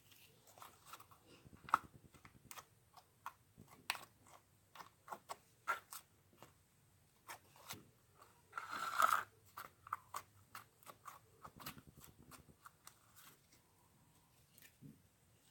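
Slime being squeezed and poked by hand, making a run of small clicks and crackles, with a longer, louder crackle about nine seconds in.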